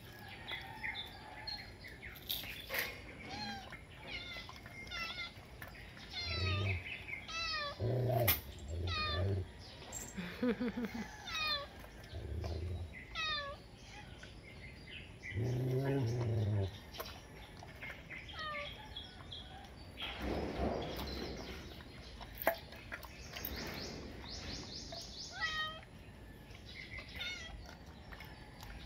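Cat meowing repeatedly, several drawn-out calls, with small birds chirping in the background. A few light clicks come from a dog licking treats out of a stainless steel bowl.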